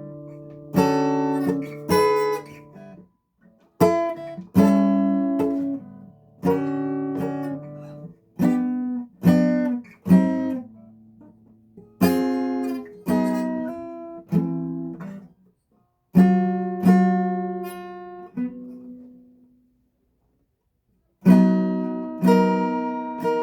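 Acoustic guitar strummed one chord at a time, each chord ringing out and dying away before the next, with a silence of about two seconds near the end. This is a beginner on the first day of playing.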